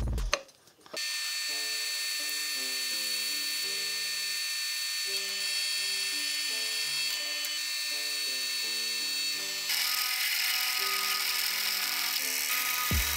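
Drill press boring through a metal plate with a twist drill bit: a steady high-pitched cutting whine that starts about a second in and grows louder and harsher about two-thirds through as the bit bites. Background music with a simple melody plays underneath.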